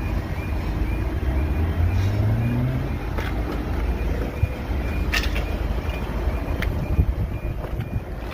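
A level crossing warning alarm sounding as short, evenly repeating high pips, about two a second, over the low rumble of road traffic. About a second in, an engine rises in pitch as a vehicle pulls away.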